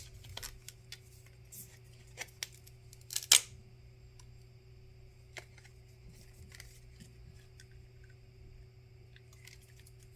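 Small hand tools clicking and scraping against a phone being taken apart, a scatter of light ticks with one sharp click about three seconds in, over a steady low electrical hum.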